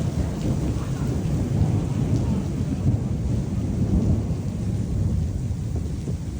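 Storm noise: a steady low rumble with rain, the rumble rising and falling in loudness without a break.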